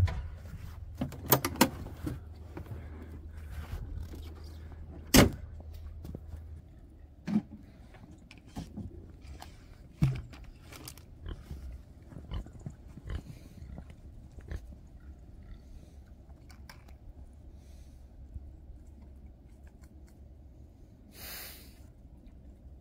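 Scattered knocks and clunks of a plastic bucket and pig water bowls being handled, over a low engine hum from the idling utility vehicle that fades after about six seconds. Near the end a brief splash as water is tipped from the bucket into a bowl.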